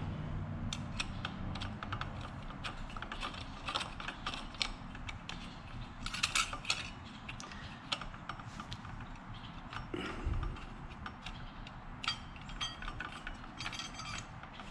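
Clutch plates of a Yamaha YZ250F clutch pack clicking and clinking against each other and the clutch housing as they are slid in one at a time: an irregular run of light metal clicks, with one dull bump about two thirds through.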